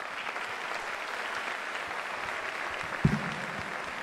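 Audience applauding. A single dull thump about three seconds in.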